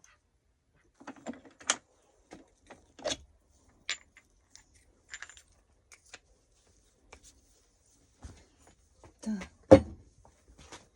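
Metal gearbox parts and tools clinking and knocking as a manual gearbox is taken apart by hand: scattered light clicks, with a louder clank near the end.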